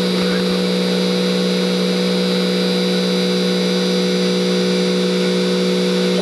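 2006 Haas EC-300 CNC horizontal mill's CAT 40 spindle running at its top speed of 12,000 RPM, a steady machine whine made of several constant tones, the strongest a low hum, held at full speed during a spindle run-up test.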